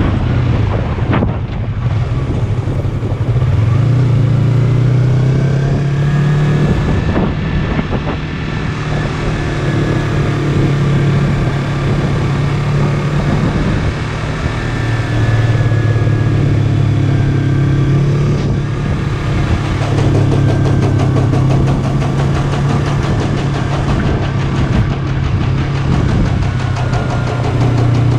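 Motorcycle engine running while riding, its revs drifting up and down through the ride.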